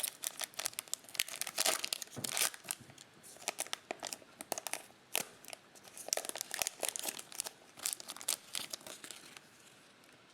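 A 2020 Panini Mosaic football card pack's wrapper being torn open and crinkled: a dense run of crackling rustles and tearing that dies away about nine seconds in.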